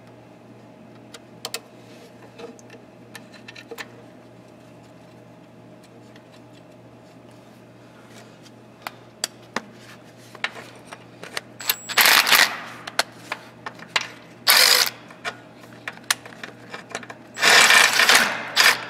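Cordless power driver running in a bolt that holds a battery cable lug to the tractor frame, in three short bursts about 12, 14.5 and 17.5 seconds in, the last the longest. Before that, light clicks of the cable and bolt being handled.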